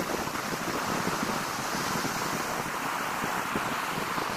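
Steady wash of ocean surf breaking on a sandy beach, mixed with wind on the microphone.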